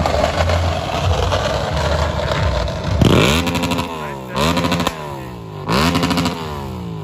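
A vehicle engine running at a low rumble, then revved hard three times about a second and a half apart, each rev climbing quickly and falling away.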